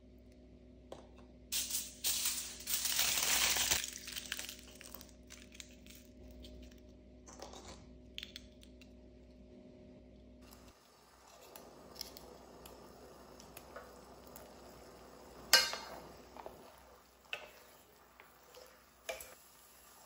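Aluminum foil crinkling and crackling as it is crushed and squeezed into a small ball by hand, loudest in the first few seconds. Later, a few scattered light clinks and taps, with one sharp one about three quarters of the way through.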